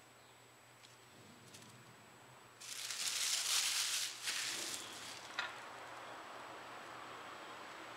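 A paper napkin crumpled in the hands, a dense crackling rustle lasting about two seconds, then softer paper handling and a single light tap.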